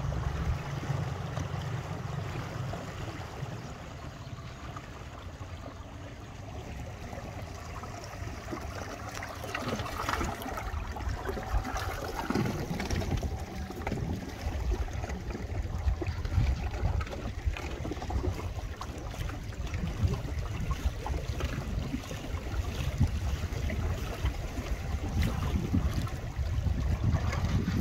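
Wind buffeting the microphone in an uneven, gusty low rumble, over the lap of small waves on wind-ruffled water.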